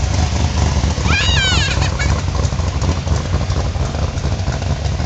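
Classic American cars rolling past at low cruising speed, their engines running with a steady deep low rumble. About a second in, a brief high warbling whistle-like sound cuts over the engines.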